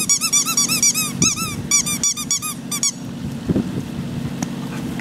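Squeaky dog toy being squeezed rapidly by hand, several sharp squeaks a second, each rising and falling in pitch. The squeaking stops about three seconds in.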